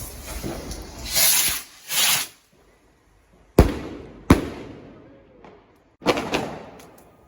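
Fireworks going off: two short hissing whooshes, then two sharp bangs under a second apart with echoing tails, and another quick pair of bangs near the end.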